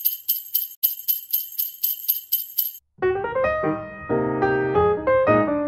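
Jingle bells shaken in a steady rhythm, about four shakes a second, cutting off suddenly about three seconds in; a piano then starts playing a melody with chords.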